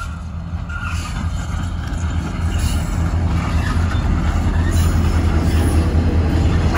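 Diesel-electric locomotives G523 and XR559 hauling a grain train past at close range, their engines running with a deep rumble that grows louder as they come alongside.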